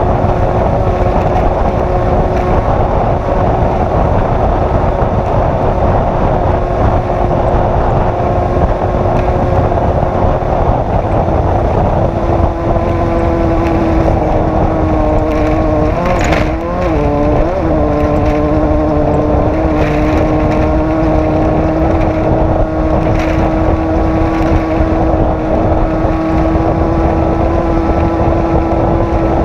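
Off-road race vehicle's engine running hard and steady at speed. Its note wavers and dips briefly about halfway through, with a few knocks from the ride.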